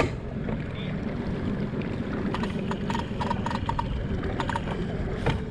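Small aluminium jon boat moving under motor: a steady low engine drone with water rushing along the hull, and a few light ticks in the middle.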